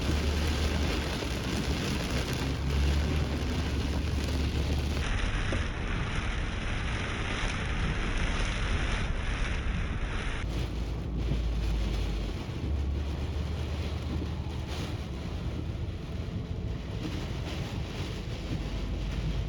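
Typhoon wind and driving sideways rain: a steady, dense rush of noise with a deep rumble from wind buffeting the microphone.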